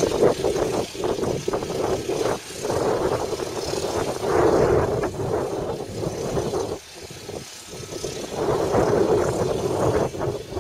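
Volvo EC290CL excavator's diesel engine working under hydraulic load. It swells and eases, drops back about two-thirds of the way through, then rises again near the end.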